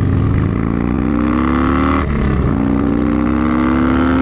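Motorcycle accelerating hard on the open road: the engine note climbs, drops at an upshift about halfway through, then climbs again through the next gear, over a steady low rumble and wind noise.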